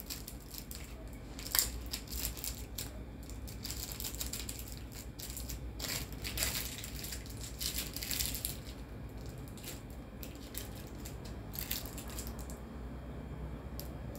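Cellophane wrapper crinkling and crackling in the hands as it is twisted shut around a candy and bound with a small rubber band: an irregular run of sharp little crackles, thicker in the first half and again briefly near the end.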